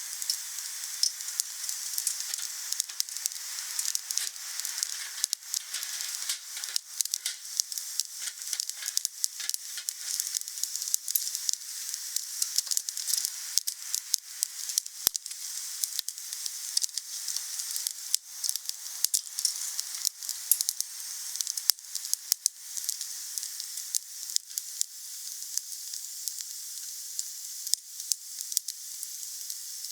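Wood fire burning: a steady hiss with frequent irregular sharp crackles and pops.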